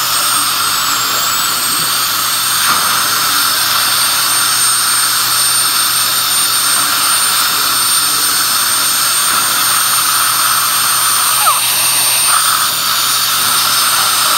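High-speed air-turbine dental drill whining at a steady high pitch as it cuts a tooth for a crown, its pitch dipping slightly now and then, over a steady hiss of air and suction.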